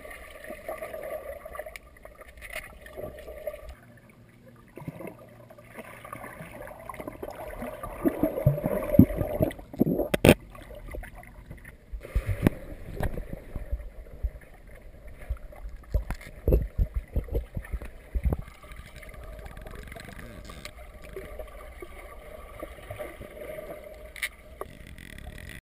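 Muffled underwater sound of a pool as a boxer dog dives in and swims down: water churning and bubbling, with a run of dull thumps and knocks in the middle.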